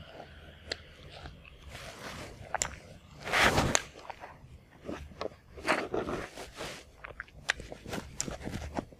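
Close-miked chewing of food: scattered soft crunches and wet mouth clicks, with louder noisy bursts about three and a half and six seconds in.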